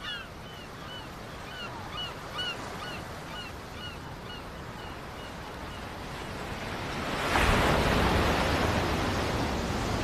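Sea surf and wind along a rocky shore, with a small bird chirping repeatedly through the first half. About seven seconds in, the sound swells into waves crashing against rocks, much louder.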